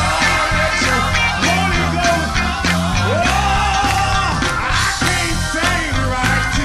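Live gospel music: a male lead singer sings into a microphone over a choir and a band with keyboard, bass and drums.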